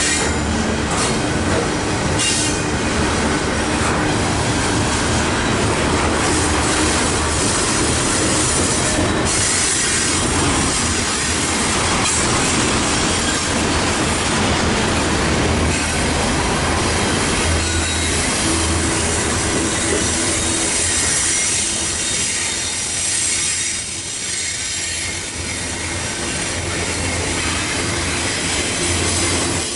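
Double-stack intermodal container cars rolling past close by: a loud, steady rumble of steel wheels on rail with a high wheel-flange squeal over it. The noise eases slightly for a few seconds about three-quarters of the way through.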